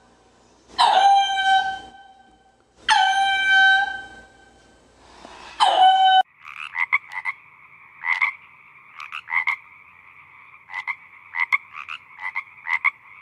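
A black-and-white ruffed lemur gives three loud howl-like calls, each sliding down in pitch and then holding a steady note for about a second. About six seconds in this cuts off sharply and a frog takes over, calling in short clicking croaks in irregular runs.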